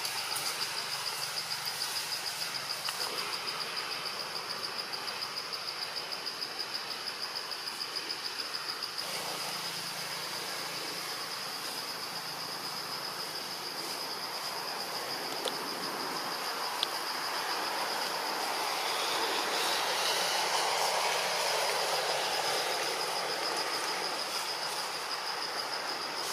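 Insects buzzing steadily in a high, finely pulsing drone. In the second half a broad, soft rushing noise swells up and fades under it.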